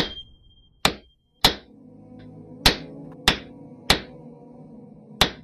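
Hammer blows, seven sharp strikes at an uneven pace, each with a short ring. Soft ambient music comes in about a second and a half in.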